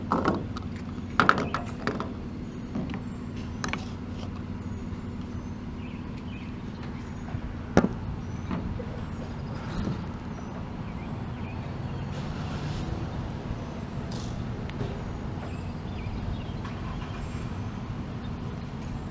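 A vehicle engine running steadily with a low hum, under scattered clicks and knocks; the sharpest comes about eight seconds in.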